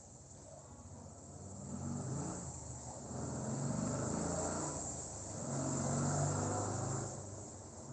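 A motor vehicle's engine passing, growing louder twice through the middle and then fading, over a steady high chirring of insects.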